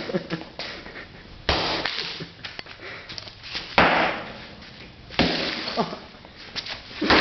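An iPod being smashed with a sledgehammer: four heavy blows a second or two apart, each a sudden hit with a noisy tail lasting about a second.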